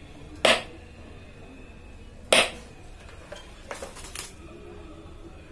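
Sharp clinks of small hard tools being set down or tapped on a workbench: two loud ones, then two fainter ones near the end.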